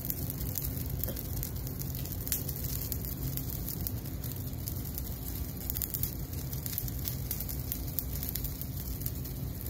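Saucepan of water boiling on an electric stovetop: a steady bubbling hiss with a few faint ticks.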